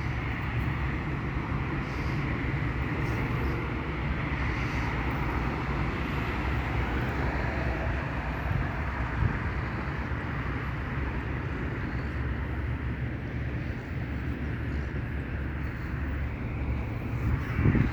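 Steady rumble of street traffic, with no distinct events standing out.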